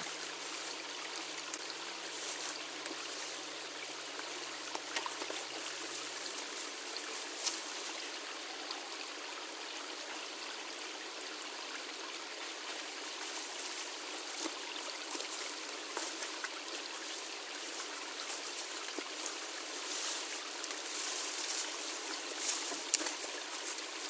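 Small creek running steadily, with a few faint clicks and rustles of brush and twigs being handled.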